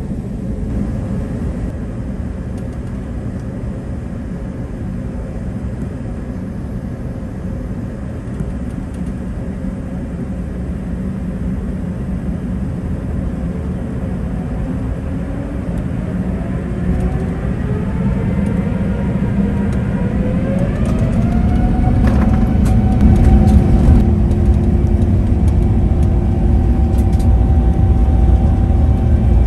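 Jet airliner engines heard from inside the cabin: a steady rumble while the plane taxis, then about halfway through a rising whine as the engines spool up, growing louder and settling into a steady high tone for the last several seconds, as at the start of a takeoff run.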